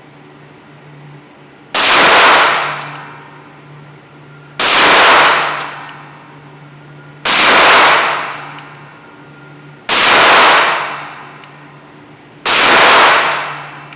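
Five pistol shots fired at a slow, steady pace, one every two and a half seconds or so, each with a long echoing tail.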